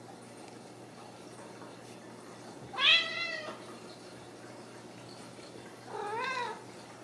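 Ragdoll kittens meowing twice: a loud meow about three seconds in and a softer one near the end, each rising then falling in pitch.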